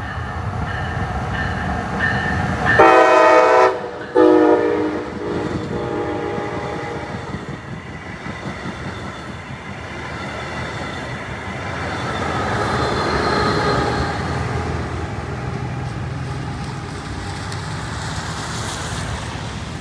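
Brightline passenger train sounding its horn, a chord of several tones, in two blasts about three and four seconds in, then running past close by with a steady rumble of wheels on the rails.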